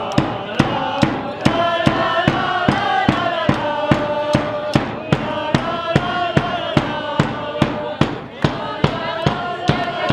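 A live brass fanfare band (euphonium, saxophone, flute, snare drum and hand cymbals) playing an upbeat tune, with sharp drum-and-cymbal hits on a steady beat of about three a second, and voices singing along.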